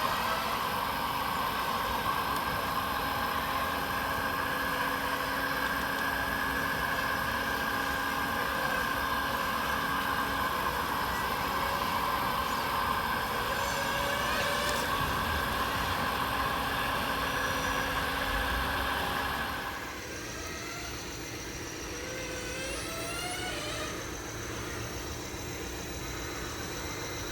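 Radio-controlled scale model trucks running, with a steady engine-like hum and motor whine. About twenty seconds in the sound drops and changes abruptly to a quieter, different steady tone with small chirps.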